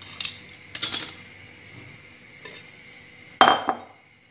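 A metal knife clicking against the rim of an upturned glass bowl as it cuts a round of tortilla dough. About three and a half seconds in comes the loudest sound: a sharp glass clink with a short ring, as the bowl is put down on the stone counter.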